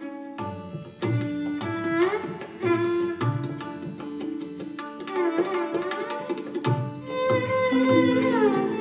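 Live Indian classical music: a tabla playing a rhythmic pattern of sharp strokes and deep bass-drum strokes under a violin playing sliding melodic phrases, over a steady drone.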